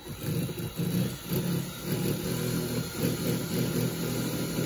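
A motor running steadily, engine-like, with an uneven low pulsing.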